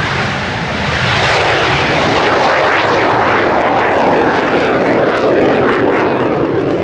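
Italian Air Force AMX attack jet's single Rolls-Royce Spey turbofan, loud and steady as the jet passes low and climbs away, its pitch sinking slightly near the end.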